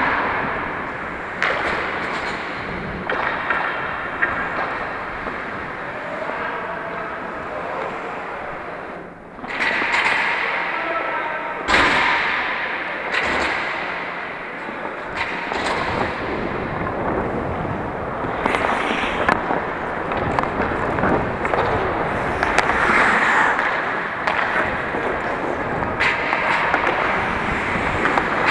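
Ice hockey play: skates scraping and carving on the ice, with several sharp knocks of sticks, puck or boards, the loudest near the middle.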